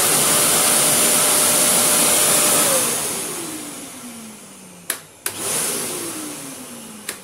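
Toughmaster 1000-watt wet-and-dry cyclonic vacuum motor running steadily, then winding down in a falling whine after nearly three seconds as it cuts out on its own when its water-level sensor detects a full bin. The switch clicks twice, and the motor starts briefly, then winds straight back down.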